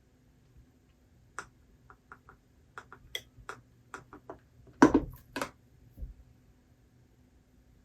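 A run of light, irregular clicks and taps from objects handled on a desk, about a dozen over four seconds. The loudest is a click with a soft thud just before the five-second mark, and a low knock follows about a second later.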